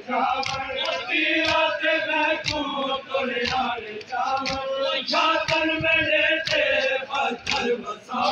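A crowd of men chanting a Muharram lament (noha) together in long held lines, with sharp slaps about once a second keeping the beat, the rhythmic chest-beating (matam) of the mourners.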